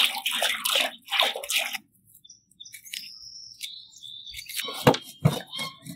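Water poured from a jug into a large aluminium pot, splashing and stopping about two seconds in. Then a bird chirps and a knife clicks sharply a couple of times against an onion being peeled.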